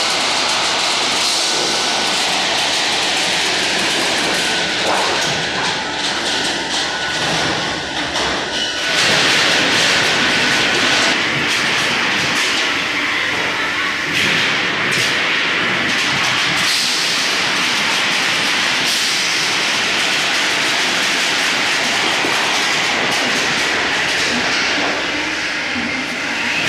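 Roofing-sheet roll-forming machine running, a steady mechanical din with clattering as the steel sheet feeds through the forming rollers. A thin steady whine sounds over it for the first several seconds, and the noise grows louder about nine seconds in.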